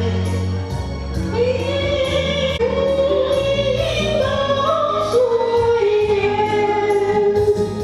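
A Vietnamese song: a voice holding long, wavering sung notes over an instrumental accompaniment with a sustained bass line and a light steady beat.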